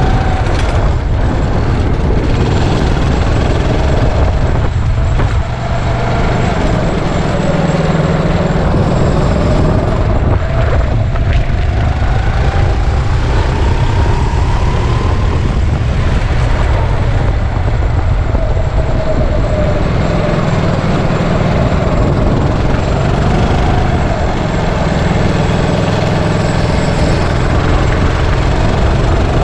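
Kart engine running hard through a lap, its pitch climbing slowly for several seconds, dropping, then climbing and falling again as the kart speeds up and slows, over a loud low rumble.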